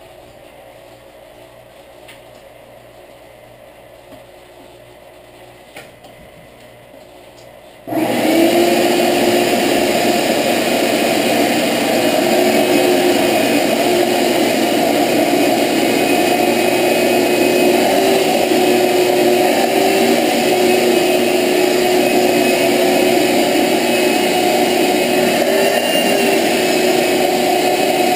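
A wet/dry shop vacuum switches on suddenly about eight seconds in and then runs steadily, a loud motor hum with a held whine whose pitch shifts slightly now and then as the hose is worked. Before it starts there are only faint room sounds and a couple of light knocks.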